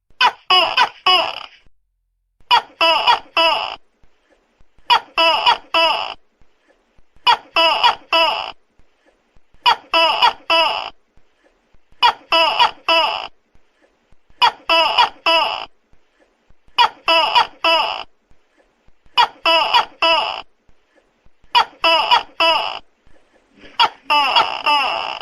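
Tokay gecko calling: loud sets of about three quick, pitched "to-kek" calls, repeating evenly about every two and a half seconds.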